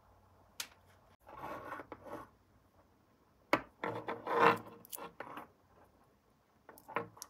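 Handling noise: wired battery cells and plastic lever wire connectors being picked up, rubbed and set down on a wooden tabletop. Two sharp clicks, one near the start and one about three and a half seconds in, are followed by spells of scraping and rubbing, loudest a little after four seconds.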